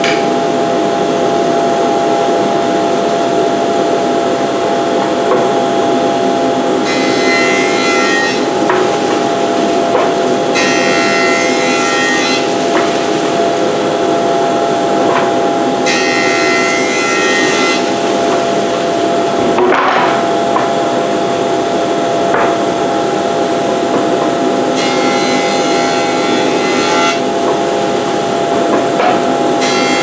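A Delta DJ-30 jointer running steadily, with poplar boards pushed across its cutterhead four times; each pass adds a couple of seconds of hissy cutting noise over the motor's hum.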